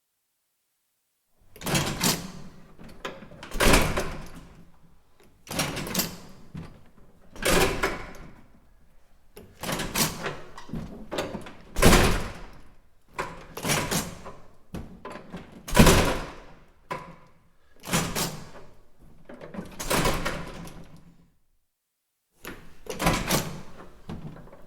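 Push-bar (panic bar) door operated again and again: sharp metal clacks of the bar and latch, each followed by the door banging, the events coming about every two seconds. Silent for the first second and a half, with a short pause near the end.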